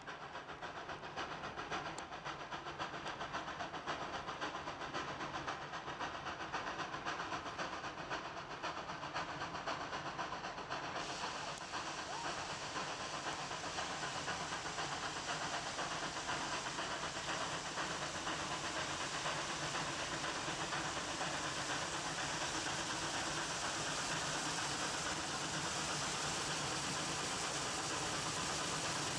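Central Railroad of New Jersey No. 113, an 0-6-0 steam locomotive, working toward the listener with a steady hiss of exhaust steam. The hiss turns brighter about eleven seconds in.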